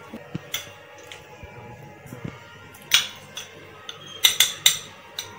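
Metal spoon clinking and scraping against glass serving bowls: a few sharp clinks, one about three seconds in and a quick run of four or five near the end.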